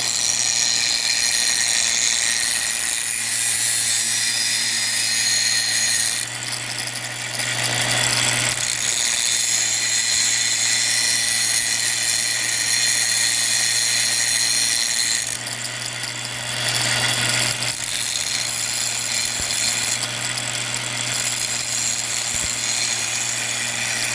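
An electric power tool motor running steadily with a high whine. It eases off briefly twice, about six seconds in and again about fifteen seconds in.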